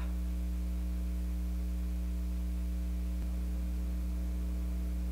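Steady electrical mains hum with its overtones, unchanging in pitch and level.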